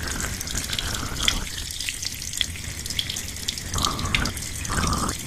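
Hair being washed with shampoo, recorded binaurally: a steady wet noise of soapy lather and water, full of small crisp crackles and pops, with a few short swells of sloshing.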